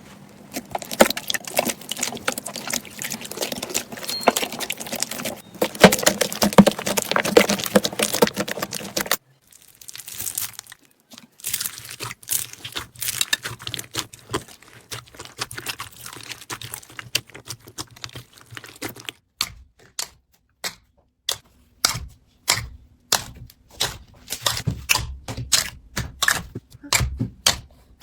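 Slime being squeezed, poked and stretched by hand, making dense crackling and popping clicks. Near the end the clicks come one at a time, about two a second.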